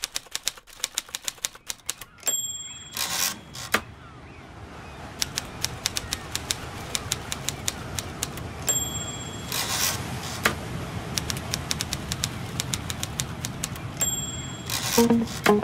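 Typewriter sound effect: rapid keystrokes clacking as text is typed out, with the carriage-return bell dinging three times, each ding followed by the zip of the carriage being thrown back.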